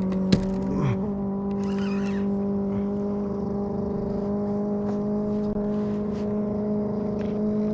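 A motor running steadily with an even hum, its pitch stepping up slightly about a second in, with a few light clicks and knocks over it.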